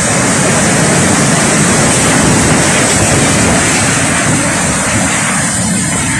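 Cyclone wind with driving rain tearing through palm trees: a loud, unbroken rush.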